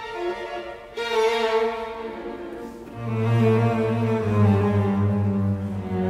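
Background music of bowed strings playing slow, sustained notes, with a deep low note coming in about three seconds in.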